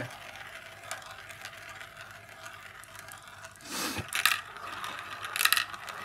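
Two marbles rolling and circling in the plastic funnel bowls of a marble-run toy: a steady rolling rattle. Two brief louder rushes come about four seconds in and again near the end.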